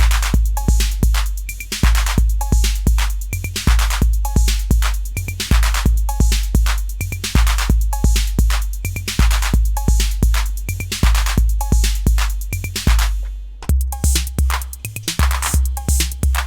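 Acidlab Miami, an analog TR-808 clone drum machine, playing a looped beat: long booming bass drum and low tom notes under steady hi-hats and sharp hand hits. About three-quarters of the way through the pattern changes, with the low booms pitched a little higher.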